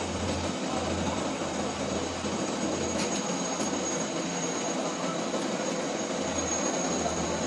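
CNC lathe running: a steady machine noise with a thin high whine and a low hum that swells and fades.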